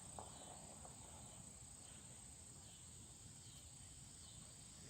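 Near silence, with a faint steady high-pitched insect drone from crickets.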